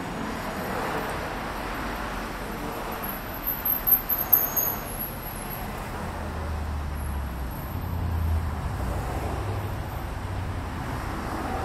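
Steady mechanical hum from a large Betts vertical turret lathe as its control panel is worked, with a few sharp knocks about four seconds in and a deeper drone building from about halfway.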